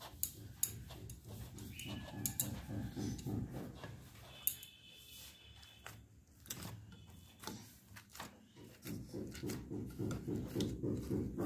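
Hand rubbing oil across a steel plate, with scattered light clicks and clinks of the metal plate and the wearer's bangles. Near the end, hands lift and squeeze soft, sticky risen dough in a bowl.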